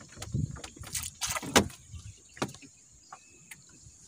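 A series of clicks and knocks, with a brief rustle, from a prawn and gear being handled in a small aluminium boat. The loudest knock comes about one and a half seconds in. A steady high-pitched hum runs underneath.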